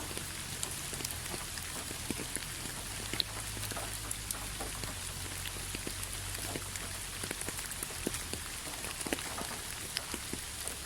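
Steady rainfall, with many separate drops ticking on a hard surface over a constant hiss and a low rumble.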